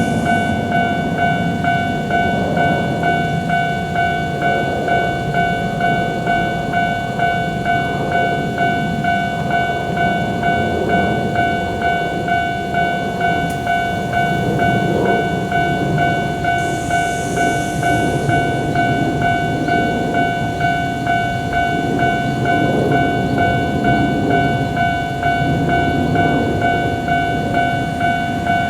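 Japanese level-crossing warning bell sounding its kan-kan tone over and over at an even pace, while a train runs past with a steady rumble. There is a brief hiss about seventeen seconds in.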